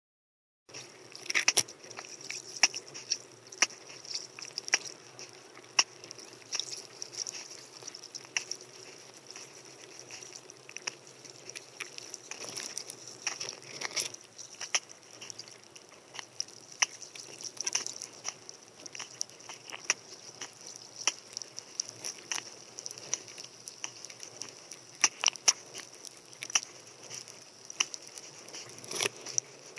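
Underwater ambience through a camera housing: many irregular sharp clicks and crackle over a steady hiss, starting just under a second in.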